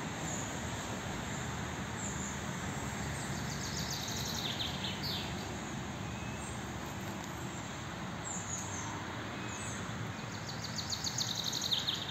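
Steady outdoor background noise with birds singing: short falling chirps now and then, and a quick repeated trill that gets louder near the end.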